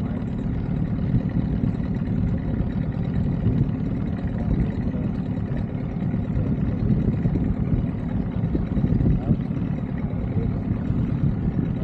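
Outboard motor of an inflatable boat running steadily under way, a continuous low rumble.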